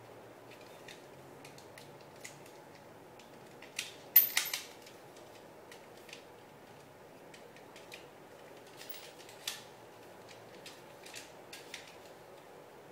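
Hard plastic clicks and rattles of a 1/60 Perfect Grade Gundam Mk-II model kit's shield being handled and pressed against the model's arm, with a loud cluster of snaps about four seconds in and another sharp click a few seconds later.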